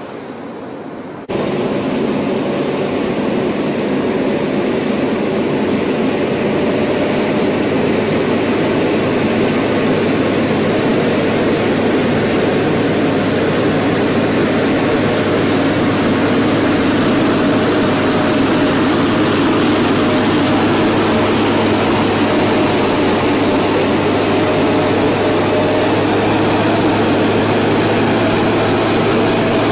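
Heavy multi-axle transporter's engine running steadily with a low hum as the vehicle rolls slowly past; the sound cuts in abruptly about a second in.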